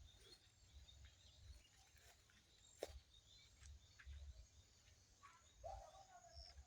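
Near silence: faint outdoor ambience with a low rumble, a single sharp click about three seconds in and a faint short tone near the end.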